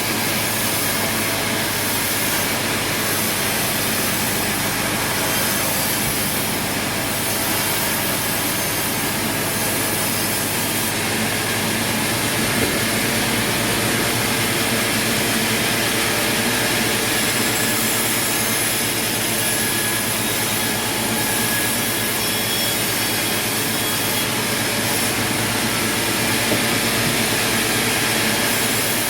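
Sawmill machinery running, a loud, steady mechanical noise that does not change over the whole stretch.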